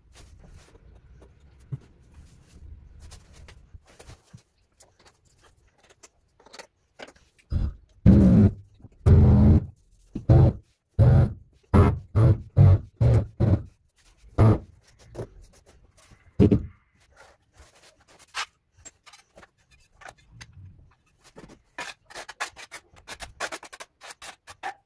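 A large ceramic floor tile being bedded into thin-set mortar, with a run of about ten loud, low pulses in the middle as it is pressed and worked down. Near the end, a trowel scrapes wet adhesive off a tile offcut in quick strokes.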